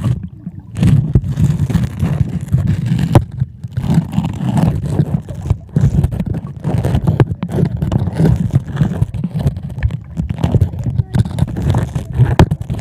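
Muffled underwater rumbling and sloshing of seawater heard through a phone's microphone submerged in the sea, surging and easing irregularly.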